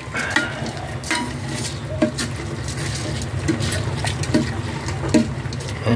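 A spoon stirring raw glutinous rice and chicken pieces in a metal pot: the grains rasp and the spoon clicks against the pot's side about once a second, over a steady low hum.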